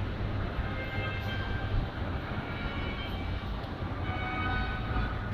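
Steady outdoor background noise dominated by a low rumble of wind on the microphone, with faint short high tones scattered over it.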